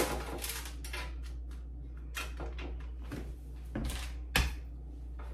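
Kitchen handling sounds as seasoned salmon fillets are laid from a plastic cutting board into a paper-lined air fryer basket: a knock, a run of light clicks and scrapes, then two louder knocks about four seconds in.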